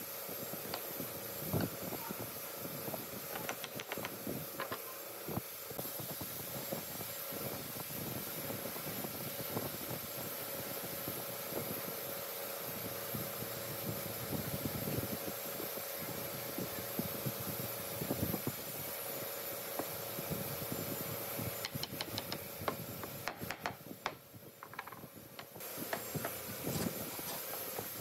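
Steady hum of an electric fan in a workshop, with light knocks and taps of pine boards being handled and set down on a wooden workbench.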